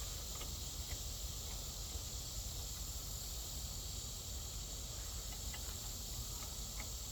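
Steady high-pitched chorus of insects, with a few faint light clicks.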